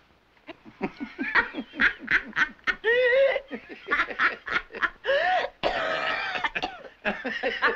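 A woman and a man laughing hard together, in quick repeated bursts with pitch swooping up and down.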